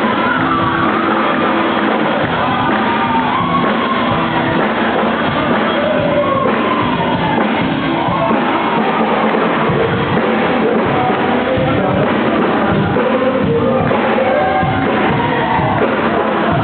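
Music with singing voices, steady and loud throughout.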